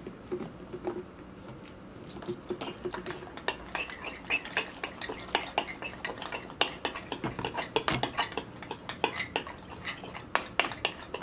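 Spoons clinking and scraping against a glass bowl and a ceramic bowl as slime is stirred while activator is mixed in. Quick irregular taps, sparse at first and busier from about three seconds in.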